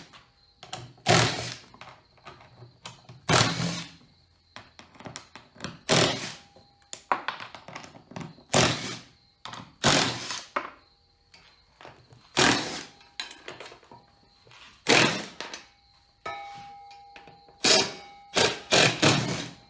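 Cordless impact driver run in short bursts, backing bolts out. The bursts come every one to two and a half seconds, with several close together near the end.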